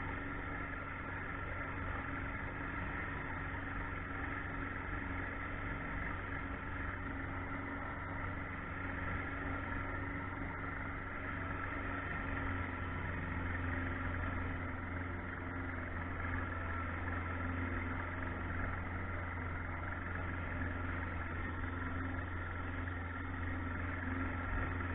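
Boat motor running steadily with a low hum that grows stronger about halfway through.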